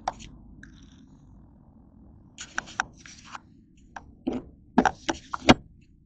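Paper takeout bag crinkling and rustling in a quick run of sharp crackles as it is handled, ending in a thump as it is set down on a wooden table near the end.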